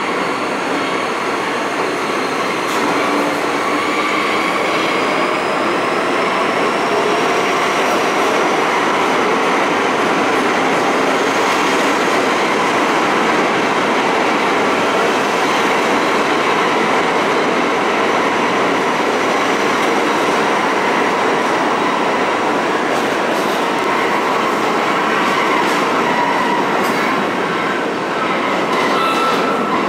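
Pullman-Standard R46 subway train pulling out of an underground station past the platform, its steel wheels running on the rails with a steady din. A faint high whine rises slowly in pitch over the first dozen seconds, and a few sharp clicks come near the end as the last car pulls away.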